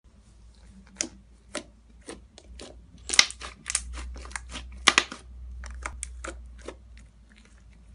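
Hands squishing and poking thick fluffy slime, making irregular sticky pops and crackles as air pockets burst, loudest in a cluster around three and five seconds in.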